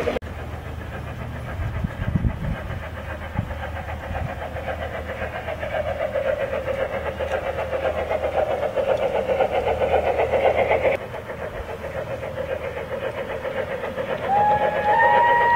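Garden-scale model train rolling along its track with a steady, fast, rhythmic clatter. Near the end the model steam locomotive's whistle sounds: a clean, held two-note tone that steps up in pitch.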